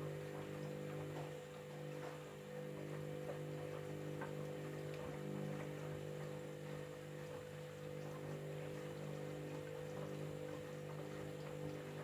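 Candy washing machine's drain pump humming steadily, with faint water ticks and trickles over it.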